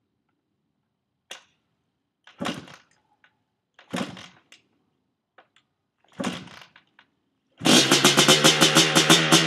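Kick-starter of a 1985 Honda ATC 250R two-stroke being stomped on a cold engine: about four short bursts as the engine is spun over without catching. Near the end a loud, continuous, rhythmic sound cuts in abruptly.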